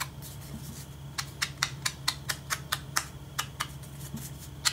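Sponge held in a wooden clothespin dabbing ink onto the edges of a paper card, quick taps about four a second that start about a second in.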